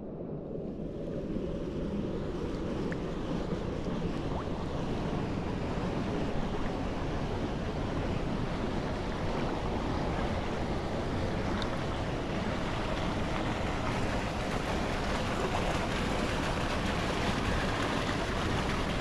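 Steady rushing and lapping of pool water moving right at the water surface, with no voices or music.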